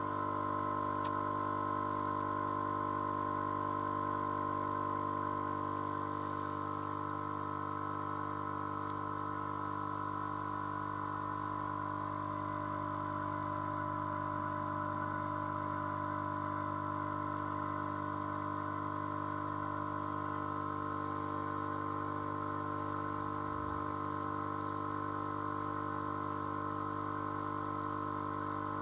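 Steady electric hum of the hydroponic system's small pump, with a light watery hiss.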